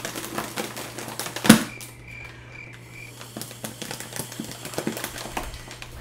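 Pink foil balloon crinkling and crackling in the hands as it is blown up by mouth, an irregular run of small clicks with one loud sharp crackle about a second and a half in.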